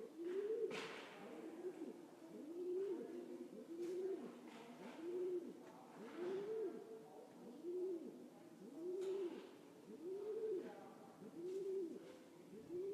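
A pigeon cooing over and over, each low coo rising and falling in pitch, about once a second.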